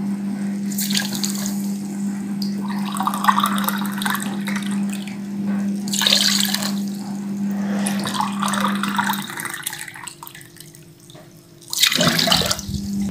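Water poured from a drinking glass into a stainless steel pot of sugar, in several separate pours, the loudest near the end, to make sugar syrup.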